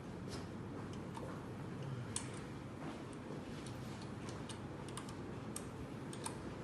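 Light, irregular clicks and taps of small parts and tools being handled while fitting the laser marker with screws, about ten over a few seconds, over a steady low background hum.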